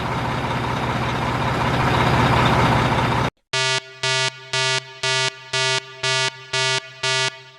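Sound-effect sequence: a vehicle engine running for about three seconds, slowly getting louder, then after a sudden cut eight short beeps of a horn-like tone at one steady pitch, about two a second.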